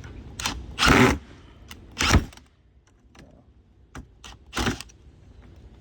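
Short clatters and scrapes of hand tools and metal hardware being handled while working a stripped ground screw in an electrical box, about half a dozen brief knocks, the loudest about a second in and just after two seconds.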